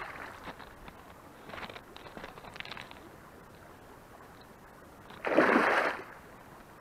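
A hooked pike thrashing and splashing at the surface of shallow water, with smaller splashes a couple of seconds in and one loud splash lasting about a second near the end.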